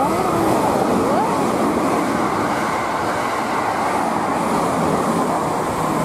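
Passenger train running through a station platform at speed without stopping: a loud, steady rush of wheels on rail and air that fills the whole few seconds.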